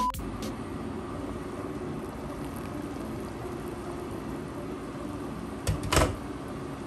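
Water at a rolling boil in a pan on an induction cooktop: a steady bubbling hiss over a low hum, with one brief loud knock near the end.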